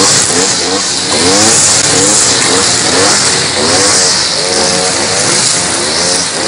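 Two-stroke brush cutters (motor scythes) cutting grass, their engines revving up and down over and over in quick rising sweeps, more than one at a time.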